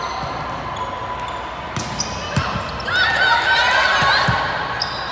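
Volleyball play in an echoing gym: a few sharp hits of the ball, and from about three seconds in, louder high-pitched calls from players.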